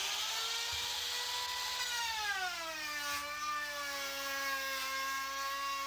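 Router with a bevel trimmer bit running at high speed, trimming the overhanging edge of plastic laminate. Its whine drops in pitch about two seconds in, then runs steadily at the lower pitch.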